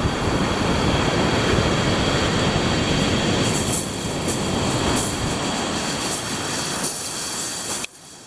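Surf breaking and rushing on a shingle beach, with wind buffeting the microphone: a loud, steady roar that drops away suddenly near the end.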